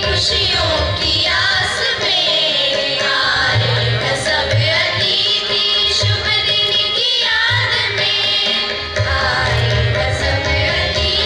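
A group of girls singing a Hindi welcome song (swagat geet) in unison, with a steady drum beat underneath.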